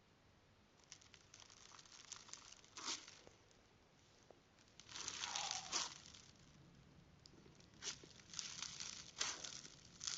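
Slime being squished and stretched, giving irregular short bouts of sticky crackling and popping, the longest and loudest about five seconds in.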